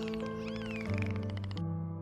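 Background music with held chords, overlaid with an animal's high calls that glide up and down and stop about one and a half seconds in.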